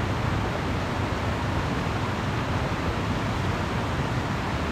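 Steady rushing of wind across the microphone, with an uneven low rumble.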